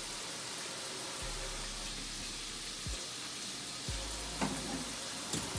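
Ribs frying in hot grease in a pan: a steady sizzle, with a couple of light knocks near the end.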